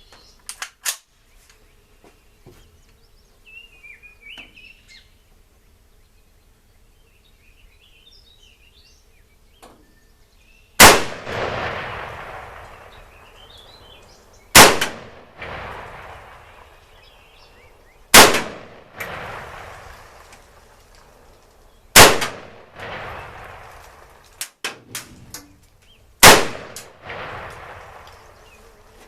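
Chinese Type 56 SKS semi-automatic rifle fired five times at a slow, even pace, a shot about every four seconds after some ten quiet seconds. Each report is sharp and loud and trails off in a long echo.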